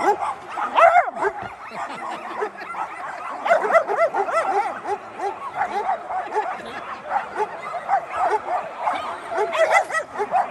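Dogs barking and yipping without pause, in short calls a few times a second that often overlap one another.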